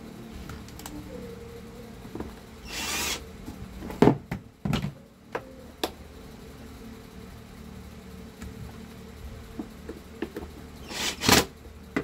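Plastic fan parts handled and fitted by hand, giving scattered clicks and knocks, with two short bursts of noise: one about three seconds in and a louder one near the end, from a cordless drill-driver run briefly.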